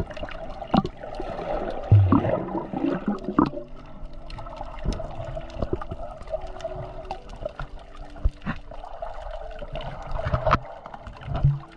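Underwater sound heard through a submerged camera: muffled water movement and bubbling, with scattered clicks and a few louder knocks, about two seconds in and near the end.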